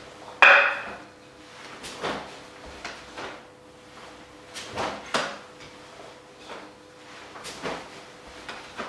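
A pair of wooden tonfa worked through lower blocks and side swings, a short sharp sound with each stroke, about seven in all, the loudest about half a second in.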